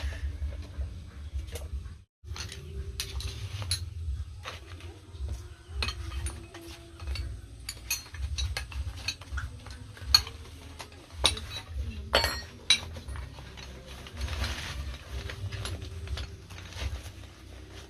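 Small metal parts clicking and clinking as they are handled and fitted, with a low steady hum underneath.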